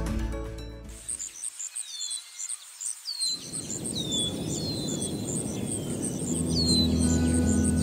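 Outdoor nature ambience: a bird repeating short, falling chirps and an insect calling in a fast, even, very high pulsing, over a low rushing background. Background music fades out at the start and comes back in near the end.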